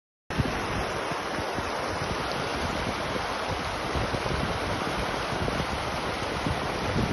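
Shallow mountain stream rushing over rocks, a steady noise of running water that cuts in abruptly after a moment of silence.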